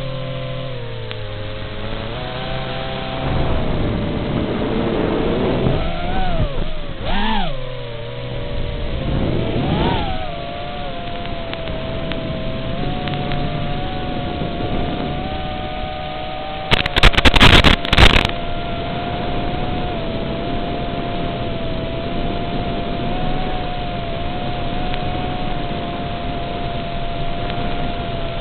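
Furibee X215 Pro racing quadcopter's motors and propellers whining steadily, the pitch sweeping sharply up and back down with throttle punches twice, about six to seven seconds in and again near ten seconds. A brief loud crackling burst comes a little past the middle.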